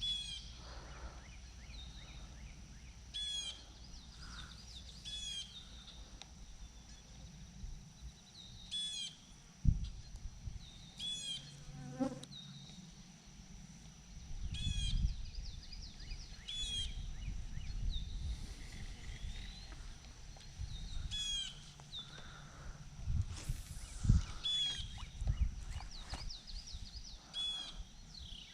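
A songbird repeating the same short chirpy phrase every few seconds, over a steady high-pitched insect drone, with a few low thumps.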